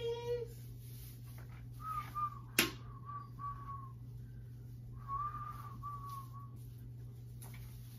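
A person whistling a tune in two short phrases, the first about two seconds in and the second about five seconds in, with one sharp click between them. A sung note trails off at the very start.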